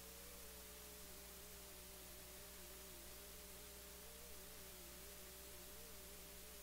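Near silence: a faint steady hum with a thin steady tone above it and a second faint tone that wavers slightly in pitch.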